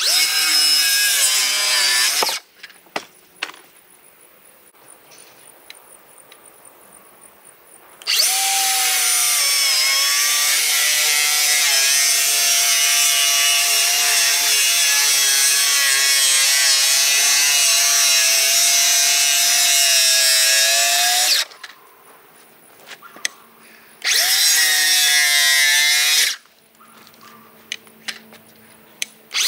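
Power tool working 1-inch rough-cut siding boards in three runs: two short ones of about two seconds and one long one of about thirteen seconds, its pitch dropping as it takes up the load. A few light knocks fall between the runs.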